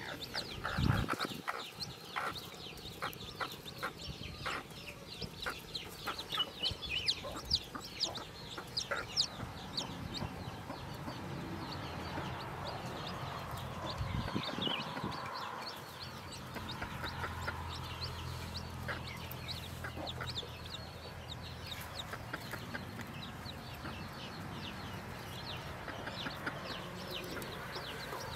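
Newly hatched chicks peeping rapidly around a broody hen on her nest, while the hen clucks low and steady. A low thud comes about a second in, and another near the middle.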